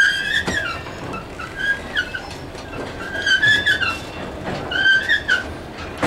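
Freight train wagons rolling slowly past at the trackside, their steel wheels giving several high-pitched squeals on the rails, each under a second long, with a few short knocks over the running rumble.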